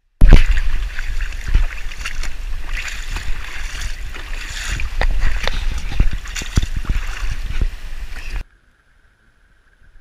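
Rushing, splashing river water close to the microphone, with a low rumble and repeated knocks from the camera being handled at the water's surface; it cuts off suddenly about eight seconds in.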